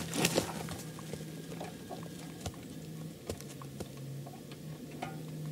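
Light, scattered clicks and taps, with a faint low hum under them, of hands working a spring-loaded kulemka marten trap while setting it.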